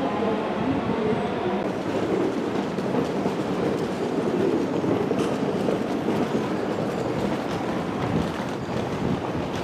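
Electric commuter trains at a station: a steady rumble and hiss of train running noise with a faint, even motor whine.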